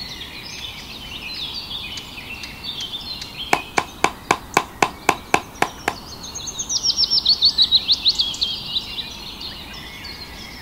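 Birdsong: varied chirping at first, then a fast trill of downward-sweeping chirps, about seven a second, in the second half. In the middle, a run of about nine sharp wooden taps, roughly three a second.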